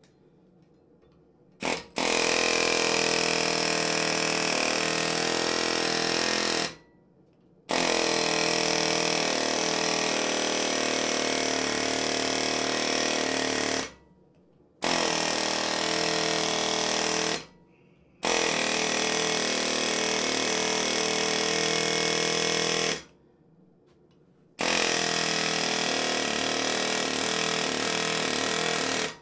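A hand-held power tool working the metal, run five times for about four to six seconds each, with about a second's pause between runs. Each run starts and stops sharply.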